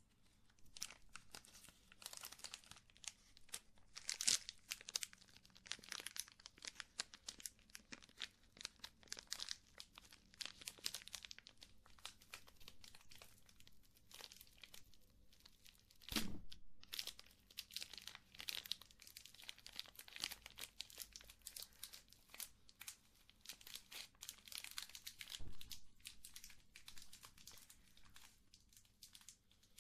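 Close-miked crinkling and crackling: a dense, irregular run of small crackles, with a soft thump and a short pause about sixteen seconds in and another soft thump near the end.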